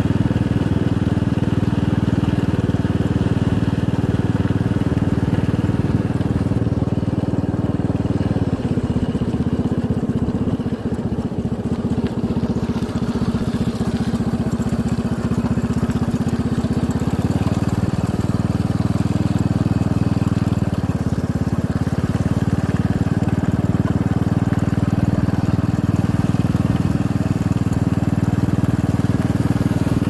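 Small motorcycle engine running steadily while riding, with wind on the microphone. The engine note drops about eight seconds in and comes back up around seventeen seconds.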